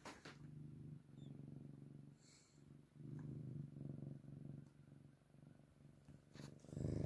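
Domestic cat purring close to the microphone: a low, steady purr in phrases of about a second, broken by short pauses between breaths, with a couple of brief clicks.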